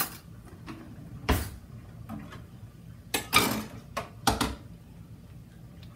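Kitchenware being handled: a few sharp knocks and clatters, one about a second in and a cluster around three to four and a half seconds in, over a low steady hum.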